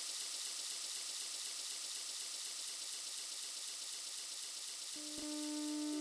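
Steady hiss of rushing water. Held synthesizer notes come in about five seconds in.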